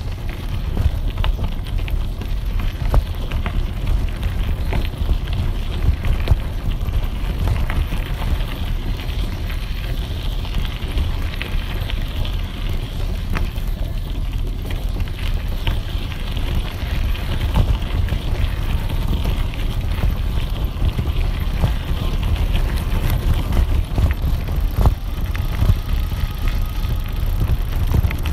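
Wind rumbling on the microphone of a handlebar-mounted camera on a moving bicycle, over the crunch of tyres rolling on a gravel road, with many small clicks and rattles from the stones and the bike.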